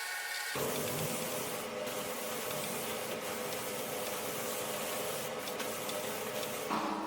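A steady hiss of a pressurised spray starting about half a second in, with a faint steady hum beneath it.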